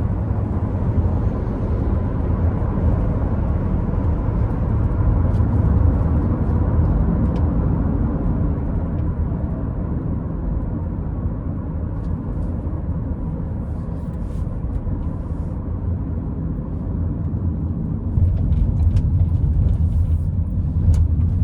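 Car driving, heard from inside the cabin: a steady low engine and road rumble that gets louder about 18 seconds in, with a few light clicks near the end.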